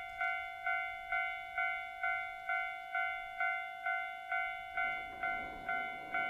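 Japanese level-crossing warning bell ringing steadily, about two strikes a second. About five seconds in, the rumble of the approaching KiHa 261 series diesel limited express rises beneath it.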